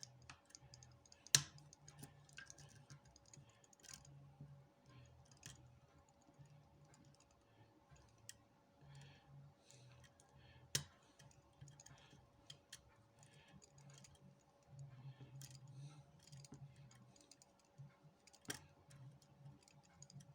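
Faint metallic clicking and scraping of lock picks working the pins of a Jedo 5-pin rim cylinder, with a few sharper clicks about a second in, near the middle and near the end. A faint steady hum lies underneath.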